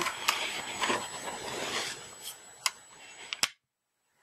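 Plastic tablet back cover being handled and lifted off the case: light rubbing and scraping with several sharp clicks and taps. The sound cuts off abruptly to silence about three and a half seconds in.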